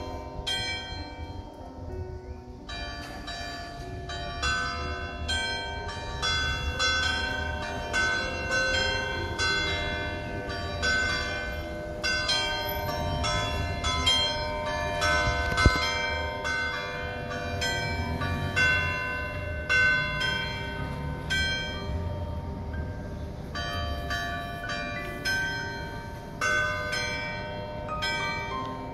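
Church bells ringing a peal: several bells at different pitches struck in quick succession, about two strokes a second, with a brief lull near the start.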